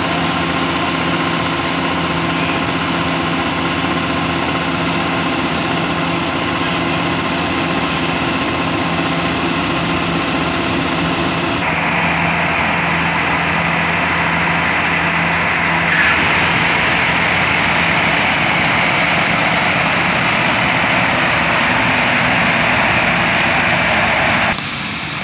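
Yanmar AW6120 combine harvester's diesel engine running steadily while its auger unloads harvested rice into a truck. About halfway through the steady hum gives way to a louder, hissier rush, which drops back down near the end.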